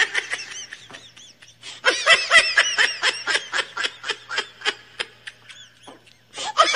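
Giggling laughter in quick, repeated high-pitched 'ha-ha' bursts. It tails off about five seconds in, and a fresh burst of laughter starts near the end.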